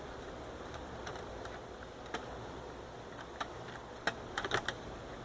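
A few light clicks and taps over a faint steady background, a quick cluster of them about four seconds in.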